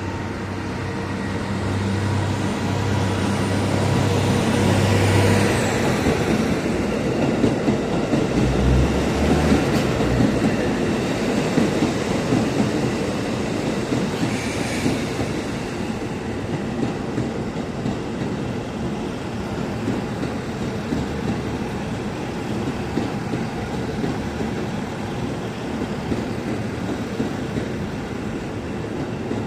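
KiYa E195 diesel rail-transport train passing at speed, loaded with long rails. A low engine hum in the first few seconds gives way to a steady rumble of wheels with clickety-clack over the track, loudest a few seconds in.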